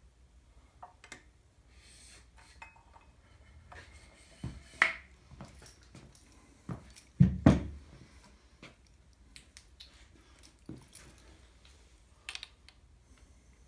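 Metal tools and parts being handled: scattered clinks and light knocks of metal on metal, with a louder knock about five seconds in and two close, heavier knocks about seven seconds in.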